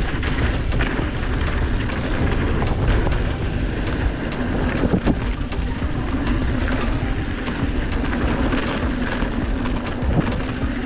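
Mountain bike riding a dirt trail: a steady, loud rumble of tyres over the ground, with wind buffeting the microphone.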